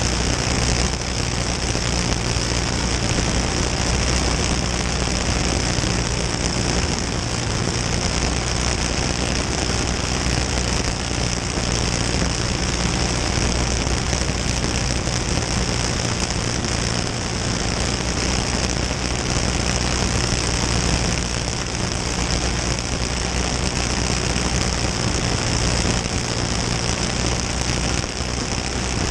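Dirt-track racing kart's engine running at speed, its pitch holding fairly steady, heard from an onboard camera with a constant rush of wind and track noise over it.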